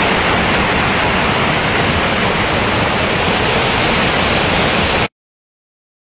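Steady roar of a strongly flowing waterfall torrent rushing over rocks, cutting off suddenly about five seconds in.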